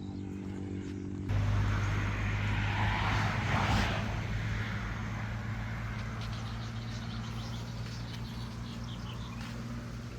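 Steady engine hum of a passing vehicle, starting suddenly about a second in, with a rush of noise that swells a few seconds in and then eases off.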